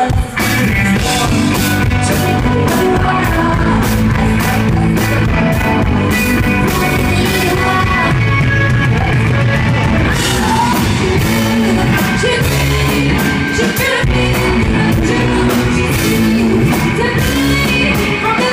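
Live rock band playing loud: drum kit, electric guitars and a woman's voice singing, heard from the crowd.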